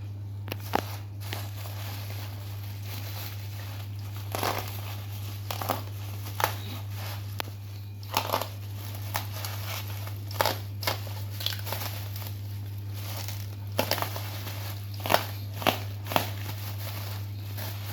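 Packaging being handled during an unboxing, crinkling and rustling in irregular short bursts over a steady low hum.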